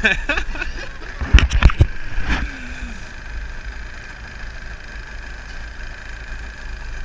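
Small Tohatsu outboard motor idling steadily beside the inflatable boat. A quick run of three or four sharp knocks comes about a second and a half in, with one more soon after; these are the loudest sounds.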